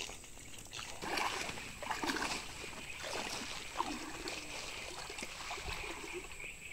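Shallow stream water sloshing and splashing around a person's legs as they wade through it, in surges about a second apart.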